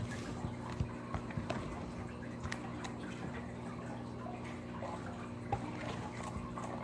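Scattered soft clicks and small wet, drippy sounds of slime and plastic slime containers being handled, over a steady low hum.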